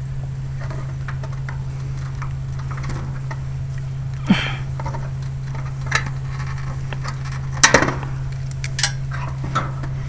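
Wooden clothespins clicking and clattering in the hand, a few sharp clicks spread out with the loudest about three-quarters of the way in, over a steady low hum.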